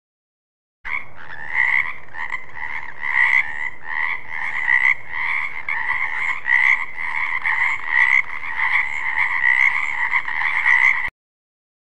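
Frogs calling in a dense, pulsing chorus, with louder calls standing out a little under once a second. It starts sharply about a second in and cuts off abruptly near the end.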